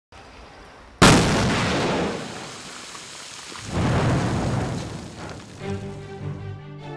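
Explosive rock blast: a sudden loud boom about a second in, its rumble dying away, then a second swell of rumble about four seconds in. Music with held notes starts near the end.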